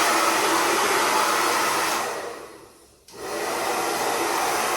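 Hand-held hair dryer blowing steadily; it fades away about two seconds in, nearly stops, then comes back on abruptly about three seconds in.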